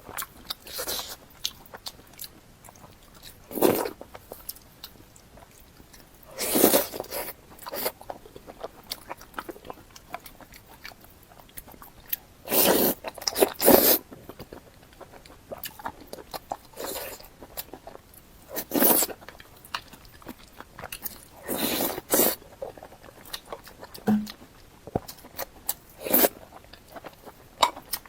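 Close-miked eating: crunchy bites and chewing that come in separate bursts every few seconds.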